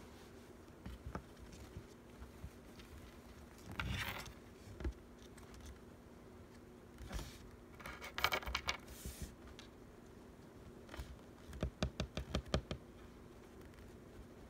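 Small handling noises: scattered light clicks and taps, two short crinkling rustles and a quick run of clicks near the end, over a faint steady hum.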